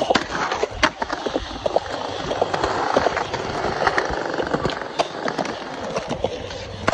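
Skateboard wheels rolling on concrete, with a sharp clack of the board landing about a second in and lighter clicks over the wheel noise.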